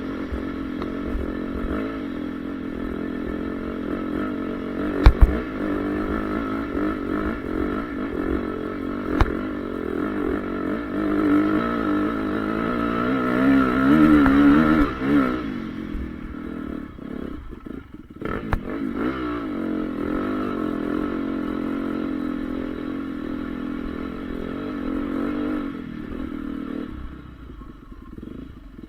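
Single-cylinder four-stroke engine of a Honda CRF450R motocross bike running under load, its revs rising and falling as it is ridden. It climbs to its loudest about 14 seconds in, then drops away. A sharp knock comes about five seconds in, and a lighter one a few seconds later.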